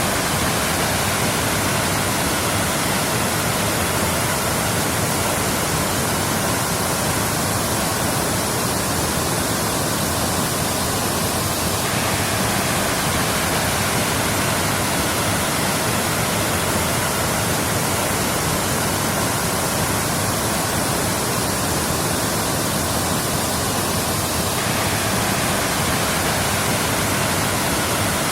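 Waterfall: steady, even rushing of falling water.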